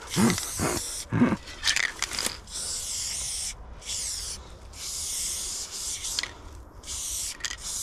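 Aerosol spray paint can hissing in about five bursts of half a second to a second or so each, with short gaps, as paint lines are sprayed. A few short, sharper sounds come before the spraying in the first two seconds.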